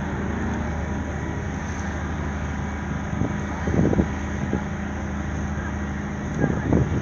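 Steady low engine hum, with two brief low thuds, one about four seconds in and one near the end.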